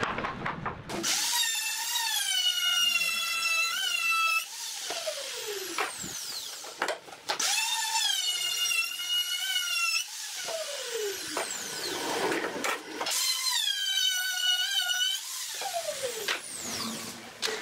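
Electric power tool motor whining in three runs of about three seconds each. Each starts with a quick rise in pitch and falls away in a downward glide as the motor spins down.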